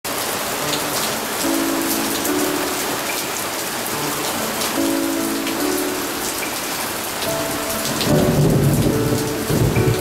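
Heavy typhoon rain pouring steadily onto a garden path and leaves. A low rumble of thunder swells in about eight seconds in.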